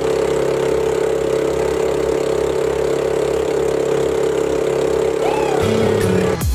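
Engine of an outrigger fishing boat running at a steady cruising speed, a loud even drone. Near the end a second, lower tone comes in.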